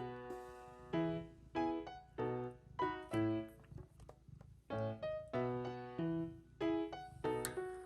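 Background music: piano notes and chords played in a steady rhythm, each note struck and fading.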